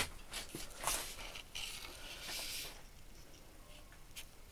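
Faint rustling and a few light clicks and knocks, like handling noise.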